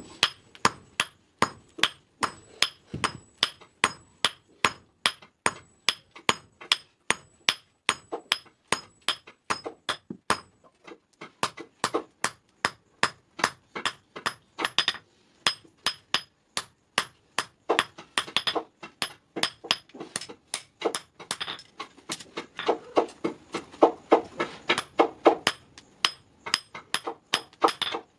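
Hand hammer forging a red-hot iron scissor blade on a small block anvil: a steady run of ringing blows, about three a second, with a short pause about ten seconds in.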